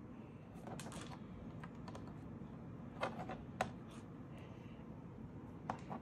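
A few light clicks and taps of hands and a small pry tool handling a laptop's plastic bottom case, in small clusters about a second in, around three seconds and near the end.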